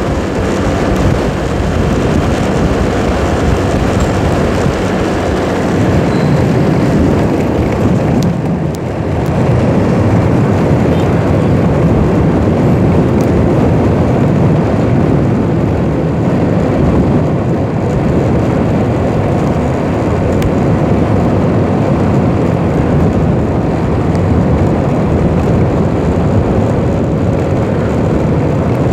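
Wind buffeting the microphone of a moving motor scooter, a loud steady rumble over the scooter's engine and road noise, easing briefly about eight seconds in.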